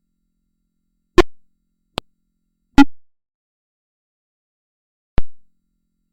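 Four short synthetic blips in dead silence, each starting sharply and dying away within a fraction of a second: three in the first three seconds, the second one briefer and quieter, and a last one about two seconds later.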